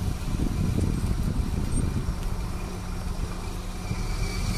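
Car driving on a muddy dirt road, heard from outside beside the front wheel: a steady engine hum with tyre and road noise.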